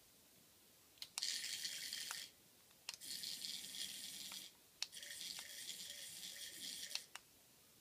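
A toy snake rattling in three bursts of one to two seconds each, starting and stopping sharply, while a cat paws at it.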